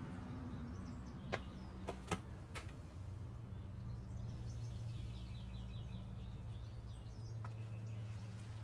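Songbirds chirping, with a rapid trilled song in the middle, over a steady low hum. A few sharp clicks come between one and three seconds in, the loudest just after two seconds.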